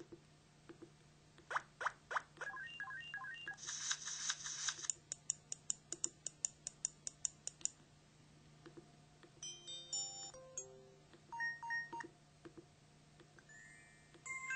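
IMB-1000 mobile phone's built-in sound effects played one after another. First come sharp clicks and short beeps, then a quick even run of ticks. Later there are several short electronic tone blips at different pitches and a brief rising tone near the end.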